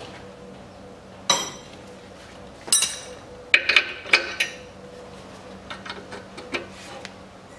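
Steel socket, extension bar and wrench clinking against the strut-to-steering-knuckle bolts as they are fitted on for tightening. The sharp ringing clinks come singly at first, then several together about three and a half to four and a half seconds in, followed by a few fainter taps.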